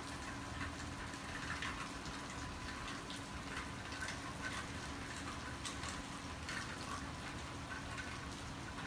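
Steady rain coming down fairly hard, an even hiss with scattered drips and splashes.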